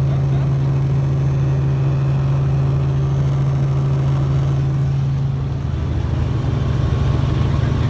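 Helicopter engine and rotor drone heard from inside the cabin during take-off, a loud steady low hum. Around two-thirds of the way through, the steady hum gives way to a pulsing beat.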